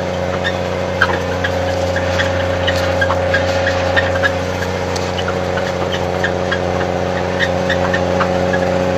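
Snowcat engine running steadily, with many light ticks and rattles scattered over it.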